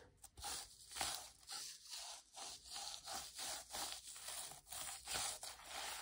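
Reversible flip sequins on a notebook cover being brushed back and forth by hand: a scratchy, rustling swipe of sequins flipping over, repeated about two or three times a second.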